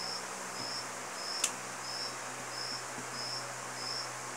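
Insect chirping steadily: short high chirps about every two-thirds of a second, over a low steady hum, with a single sharp tick about one and a half seconds in.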